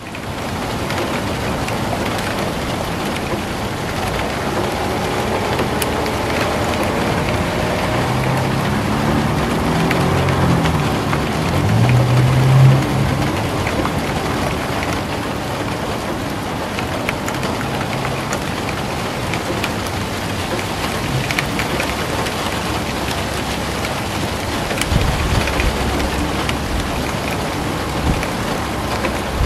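Steady rain falling. A low pitched hum rises and falls in the middle and is loudest about twelve seconds in, and a low rumble comes near the end.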